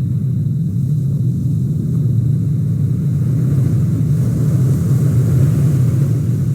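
A car driving at a steady pace, its engine and road noise making an even low rumble.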